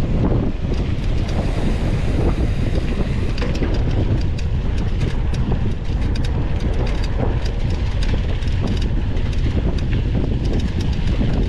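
Wind buffeting the microphone of a mountain bike's onboard camera, with a constant low rumble and frequent small rattles and knocks from the bike running over a rough dirt trail.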